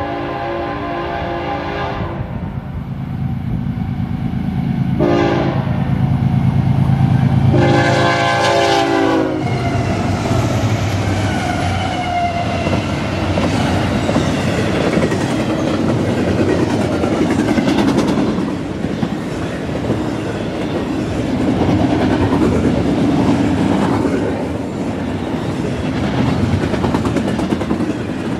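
BNSF freight locomotives' air horn sounding a long blast, a short one about five seconds in, and a final long blast whose pitch drops as the locomotives pass, over the building rumble of their diesel engines. After that, a fast train of double-stack intermodal container cars rolls by with steady clickety-clack from the wheels over the rail joints.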